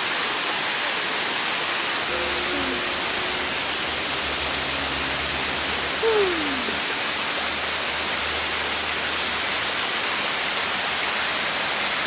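Waterfall rushing: a steady, even roar of falling water down a high rock face, with a short faint falling tone about halfway through.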